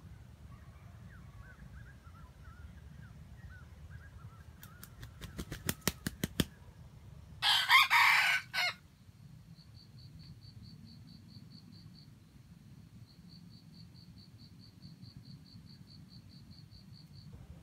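Junglefowl rooster beating its wings in a quickening run of sharp flaps, then crowing once, a short crow of about a second that is the loudest sound. Afterwards a fast, even, high-pitched pulsing call goes on for several seconds.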